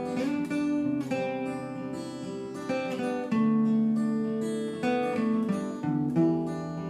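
Background music on acoustic guitar, picked and strummed, a new note or chord about every second ringing on.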